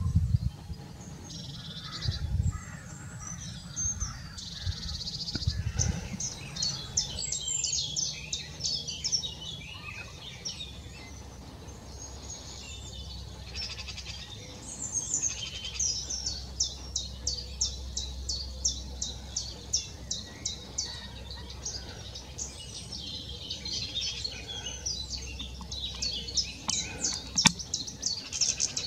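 Wild birds singing and calling in a mixed chorus, with runs of quick, high repeated notes, over a low steady rumble.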